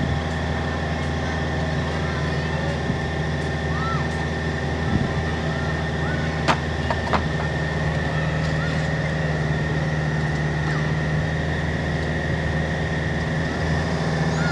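Diesel engine of heavy earthmoving equipment running steadily, with two sharp knocks in quick succession about halfway through.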